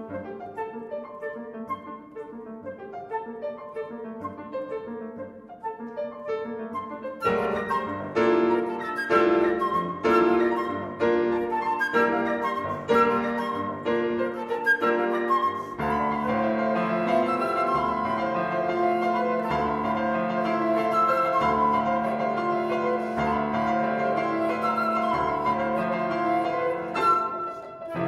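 Concert flute and grand piano playing a fast contemporary classical duet of rapid running notes. The music is soft for the first quarter, then turns suddenly louder with sharp accents, and about halfway through settles into a fuller, more sustained texture.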